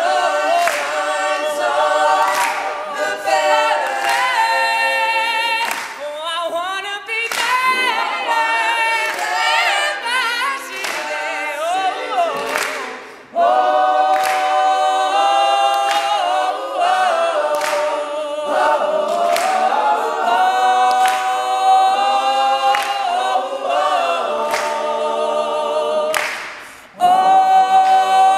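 All-male a cappella group singing, a lead voice over close backing harmonies, with sharp hand claps from the backing singers partway through. Twice, just before the middle and near the end, the voices fade out briefly and then come back in together at full strength.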